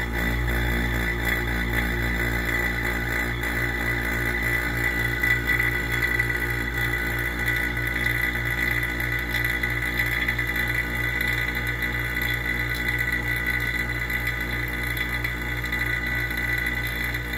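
Electric vacuum pump running steadily with a fast, even pulsing and a high whine, pulling a vacuum on a chamber of hot water and grain.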